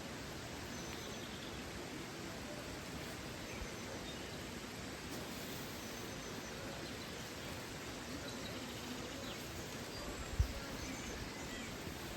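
Steady rushing of a waterfall, with faint short bird chirps here and there. A single low thump about ten seconds in.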